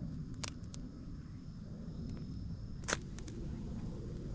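Campfire crackling: a few sharp pops of burning wood, the loudest about three seconds in, over a steady low rumble.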